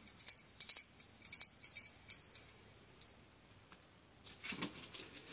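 A small bell jingling on one clear high pitch, struck in quick succession about four times a second for about three seconds, then stopping.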